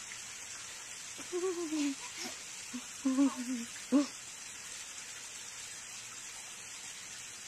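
Baby babbling in three short vocal sounds, about a second, three seconds and four seconds in, the last one brief and the loudest, over a steady hiss.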